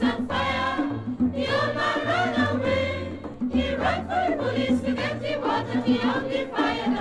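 Background music: a song with several singing voices over a repeating bass line.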